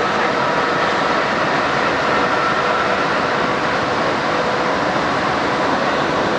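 Suburban electric commuter train running between stations, heard from inside the carriage: a steady rush and rumble of wheels on the track, with a faint steady whine.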